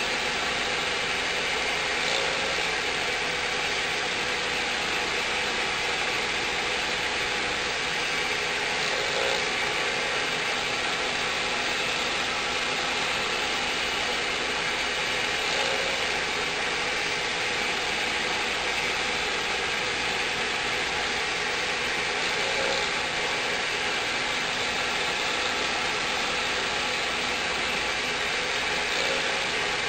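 CNC router spindle running steadily while milling a canopy mold. A faint change in the sound recurs about every six to seven seconds.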